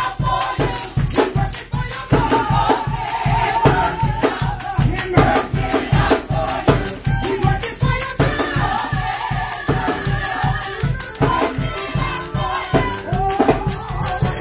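Gospel choir singing with a live band, a strong steady beat and crisp rhythmic percussion.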